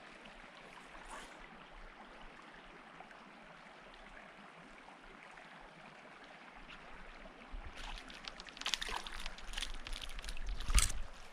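Small mountain creek flowing and trickling steadily. From about eight seconds in, a quick irregular run of splashes and rustles comes in, louder than the water.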